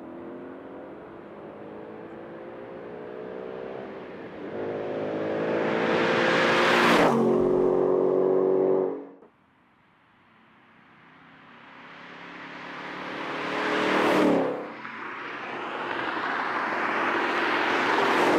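2024 Ford Mustang GT's 5.0-litre Coyote V8 accelerating past twice. The engine note climbs as the car approaches, and at each pass, about seven seconds in and again about fourteen seconds in, it rushes loudest and drops in pitch. The sound cuts out briefly just after nine seconds.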